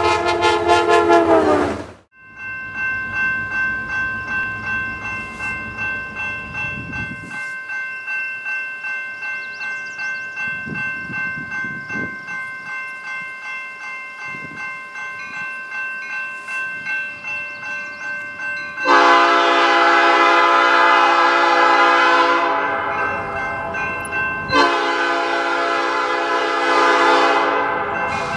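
A passing train's horn falls in pitch and cuts off about two seconds in. Then a grade-crossing warning bell rings steadily. About 19 seconds in, a Norfolk Southern GP38-3's Nathan P5 five-chime horn sounds a long blast over the bell, breaks briefly, and sounds a second long blast.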